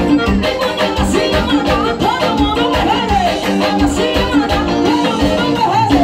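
Forró band music with a steady beat and a melody line that slides up and down.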